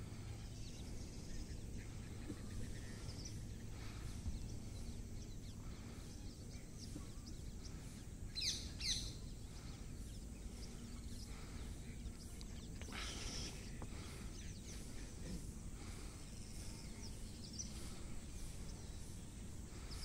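Wetland birds calling over low steady background noise: scattered faint chirps throughout, a pair of sharper calls about eight and a half seconds in, and another burst of calling around thirteen seconds.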